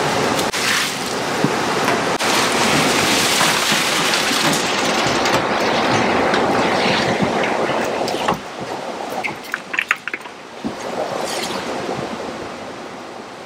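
Ice slurry sloshing and splashing in a fish tote as fish are hauled out of it, a loud rushing wash of water and ice. After about 8 s it quietens, and a few knocks follow as a large fish is slid over the tote's edge.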